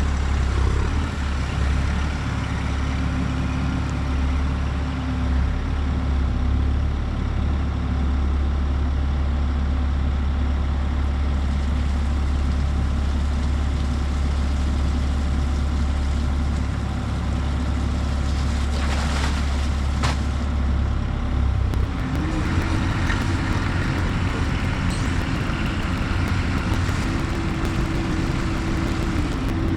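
Diesel engine of a Bobcat E42 compact excavator running steadily, with a couple of short metallic clanks near the middle; about two-thirds of the way through the engine note steps up in pitch and holds at the higher speed.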